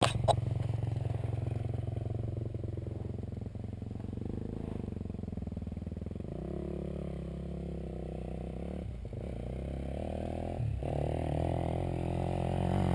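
Dirt bike engine idling steadily, with a brief knock right at the start. In the last couple of seconds a second motorcycle's engine grows louder as it climbs the hill.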